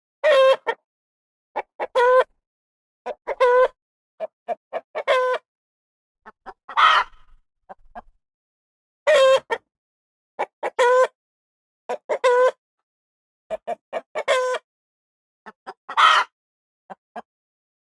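Chicken clucking: groups of short quick clucks, each group ending in a longer drawn-out call, with a clean silence between groups. The sequence repeats about halfway through.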